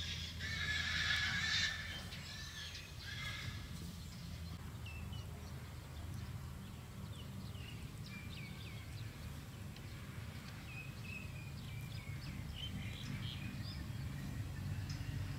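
A loud, wavering high-pitched animal cry in the first two seconds. Faint short chirps follow over a steady low rumble.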